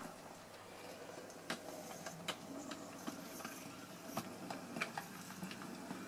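Model railway locomotive running along the track: a steady small-motor whirr with irregular sharp clicks as the wheels cross rail joints and pointwork.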